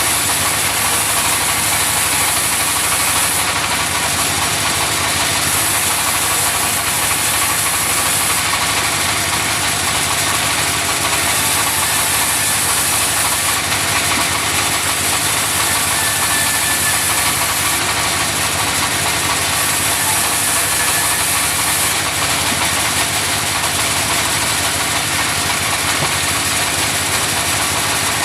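Engine-driven sawmill running steadily while sawing logs, with a high hiss that comes and goes every few seconds.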